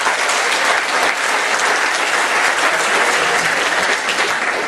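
Theatre audience applauding: steady, dense clapping from a full house.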